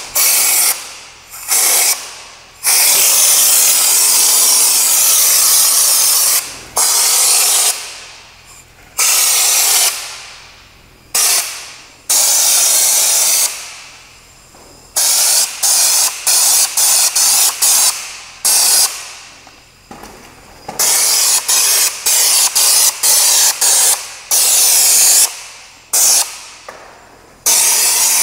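Compressed-air undercoating gun spraying rubber-based anti-gravel coating from a screw-on can: a loud hiss in bursts as the trigger is pulled and let go, some held for several seconds, others short quick blasts, each trailing off over about a second after release.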